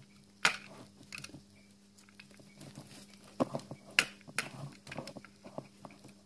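Hands working through a tangle of motor-vehicle wiring: rustling wires and plastic connectors, with a few sharp clicks of a hand tool against the harness, over a faint steady hum.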